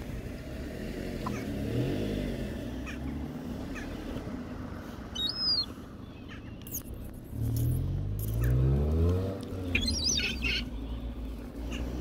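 Cars driving past a flock of herring gulls, with one engine rising in pitch as it speeds up about eight seconds in, the loudest sound. Short high gull calls come twice, about five and ten seconds in.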